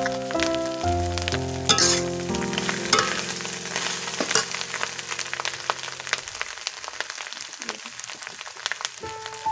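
Spiced chunks frying and sizzling in a large metal karahi, crackling steadily, with a metal spatula scraping the pan as they are stirred. Background music plays over it and drops out for about the last three seconds.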